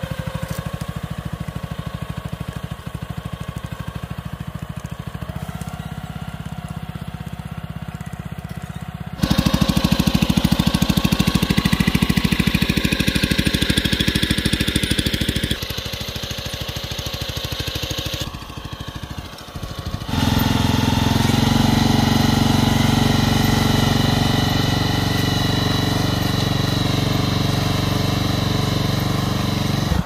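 Walk-behind cultivator with a plastic-mulch laying attachment, its small engine running steadily while it lays film over potato ridges. The loudness jumps up and down abruptly several times.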